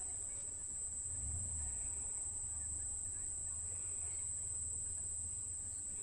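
Night insects, crickets, giving one steady high-pitched drone, with a faint low rumble underneath.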